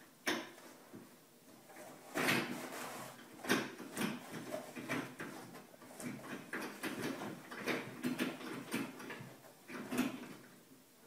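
Toilet paper being pulled and torn off its roll by a cat's mouth, a run of rustles and sharp knocks as the roll jerks round and rattles on its metal holder, the loudest about two seconds in, at three and a half seconds and near the end.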